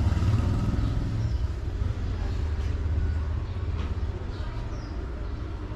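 Low rumble, loudest for the first second and a half and then fading, with a few faint high chirps later on.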